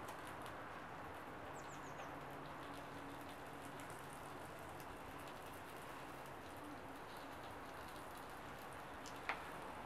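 Small tinder and kindling fire burning under split logs, crackling faintly with scattered small clicks and one sharper pop about nine seconds in. A bird gives a quick run of short chirps about a second and a half in.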